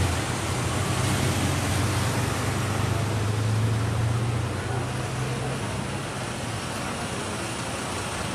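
Diesel city buses moving through a bus interchange: a low engine rumble with traffic noise, which fades about five or six seconds in.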